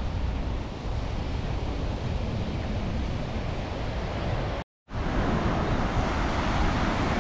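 Wind rumbling on the microphone over the steady wash of surf breaking on a beach. The sound drops out to silence for a moment about two-thirds of the way through, then returns slightly louder.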